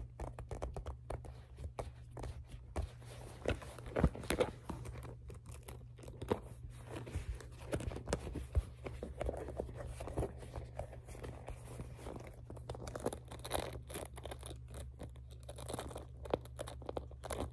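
Small red leather pouch handled up close: fingers tapping, rubbing and squeezing the leather in scattered crackles, scrapes and ticks, with fingers working at its snap button near the end.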